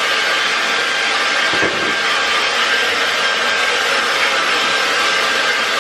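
Handheld hair dryer running steadily: a constant rush of air with a faint steady whine.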